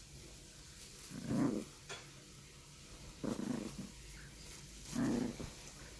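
Bichon frise puppy growling low in three short growls, each about half a second long, as it guards its toy against being taken.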